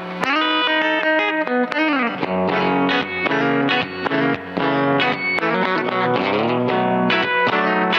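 Electric guitar, a Fender Coronado II, played through a Keeley Compressor Plus compressor pedal. It plays a busy run of clean, sustained picked notes with several string bends and slides.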